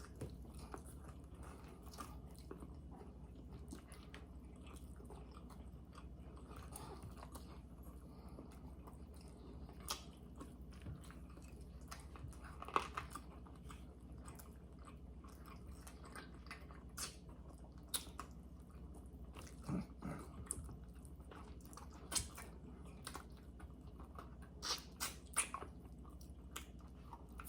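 Quiet chewing and biting on baby back pork ribs, with scattered short crunching clicks as the meat is worked off the bones.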